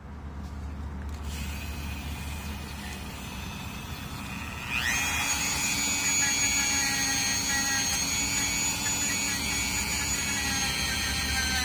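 Dremel rotary tool running: a steady motor hum that rises about five seconds in to a higher-pitched steady whine as the speed goes up.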